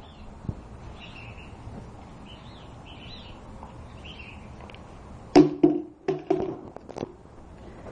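Faint bird chirps in the background. About five seconds in comes a quick run of sharp knocks and clatter, with a brief low pitched sound mixed in.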